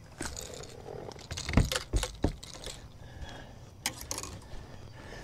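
A spotted bass being landed and handled in the net over the side of an aluminum boat: metallic jangling and clinks, with a few sharp knocks, the loudest about one and a half to two and a half seconds in.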